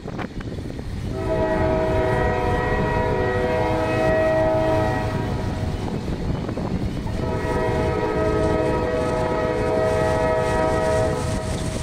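Diesel freight locomotive's air horn sounding two long, loud blasts, a chord of several steady tones, over the low rumble of the approaching train.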